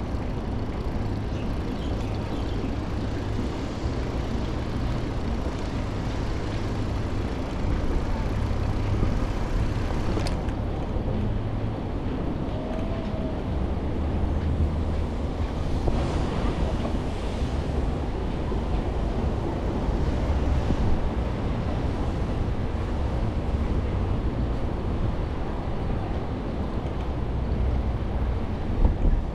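Wind rushing over an action camera's microphone during a bike ride, a steady low rumble, with a brief knock near the end.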